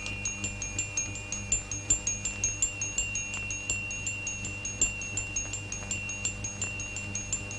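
Small bell-like chimes struck in an even rhythm, about four strikes a second, over a held high ringing tone: bell music from the film's score.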